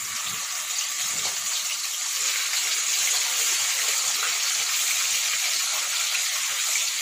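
Pieces of snakehead fish frying in hot oil in a kadai, a steady hissing sizzle.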